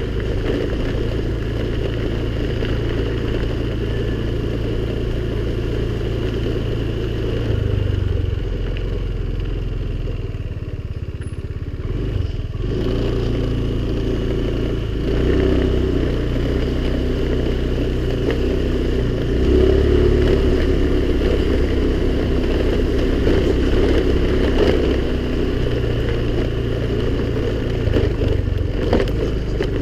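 Honda scooter's small engine running as it is ridden, its pitch dropping about eight seconds in, easing off around ten seconds and picking up again near twelve and twenty seconds, with some rattling and knocks over the rough track.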